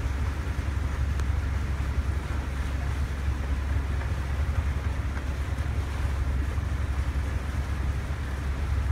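Steady low rumble of a moving boat, with water washing past and wind buffeting the microphone.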